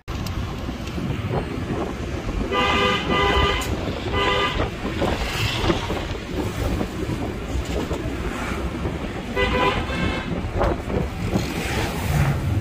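Steady road and engine noise of a moving car in street traffic, with vehicle horns honking in short blasts: several around three to four seconds in, and more near ten seconds.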